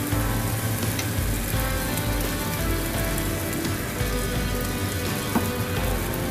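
Rice-flour batter sizzling steadily in hot oil in a frying pan.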